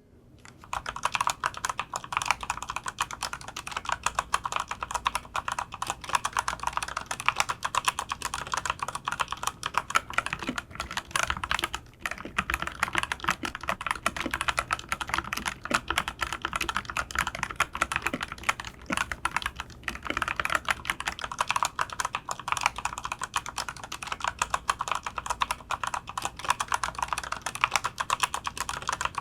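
ABKO K417 tenkeyless mechanical keyboard being typed on continuously: a dense, fast run of key clicks and keystrokes, with a brief pause about twelve seconds in.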